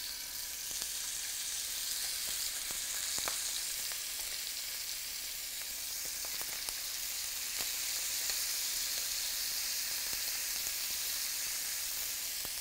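Thin slices of salted pork belly sizzling in hot oil in a pan over medium-high heat: a steady hiss with scattered small pops.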